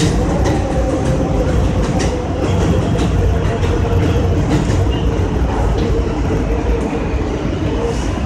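New York City subway train running along elevated track, heard from inside the front car: a steady loud rumble with a constant hum, and scattered clicks from the wheels over the rails.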